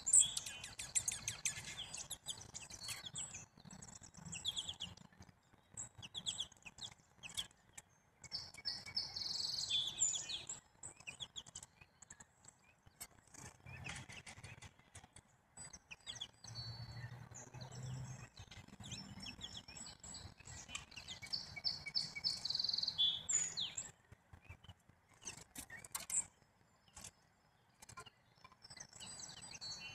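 Small songbirds chirping and calling in repeated high-pitched chattering bursts, with scattered sharp clicks between them.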